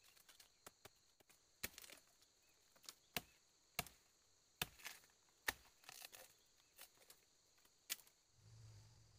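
A machete chopping into bamboo and brush: about eight sharp, irregular strokes, some in quick pairs, over a faint steady buzz of insects.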